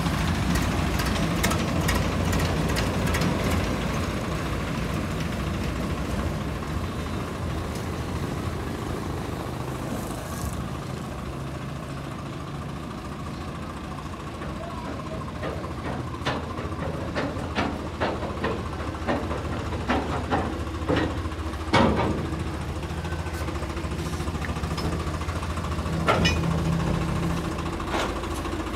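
Tractor diesel engine idling steadily, with a run of sharp clicks and knocks in the second half.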